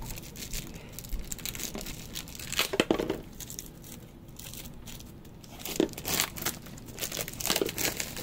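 Plastic shrink wrap being torn and crinkled off a Magic: The Gathering bundle box, in irregular rustling bursts with louder crackles about three seconds in, around six seconds, and near the end.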